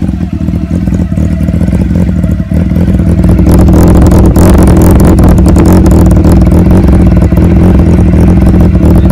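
Honda CBR400 inline-four engine idling steadily through an aftermarket LeoVince carbon-fibre slip-on muffler. It gets louder about three seconds in, when the sound is picked up right at the exhaust outlet.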